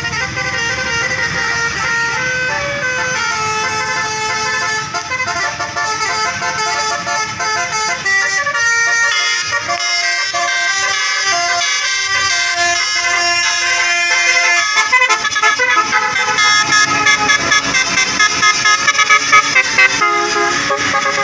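Bus basuri telolet horn played on and on, a tune of stepped musical notes with no break, getting louder in the second half.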